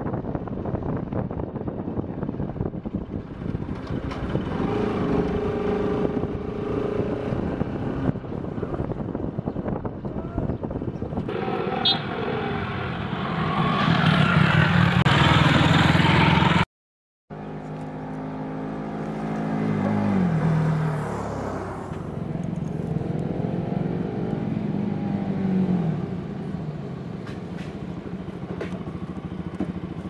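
Sport motorcycle engine running on the move, its pitch rising and falling several times with the throttle, mixed with wind on the microphone. The sound gets loudest about halfway through, then cuts out completely for about half a second before the engine comes back, its pitch sliding down.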